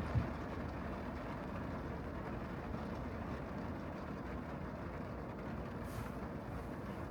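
Steady road and tyre noise of a car driving on rain-wet streets, an even low rushing hiss, with a short low thump just after the start.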